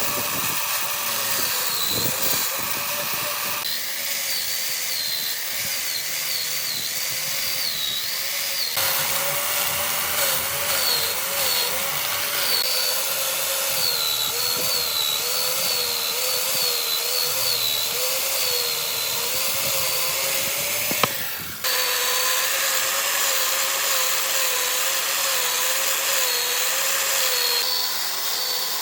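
An electric power tool running continuously on wood, its motor whine wavering in pitch as the load changes. The sound changes abruptly several times, with a brief drop about 21 seconds in.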